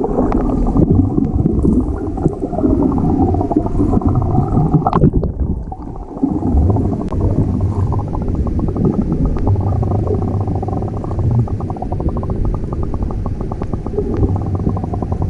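Muffled water churning and gurgling heard by a camera held under water, with all the high sound cut off.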